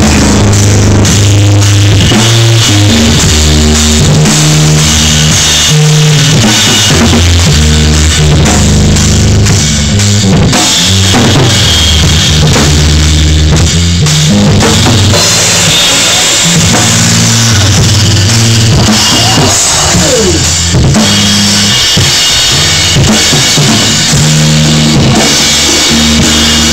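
Live rock band playing loud, heard from right beside the drum kit: drums and cymbals hit hard over low sustained notes that change every second or so.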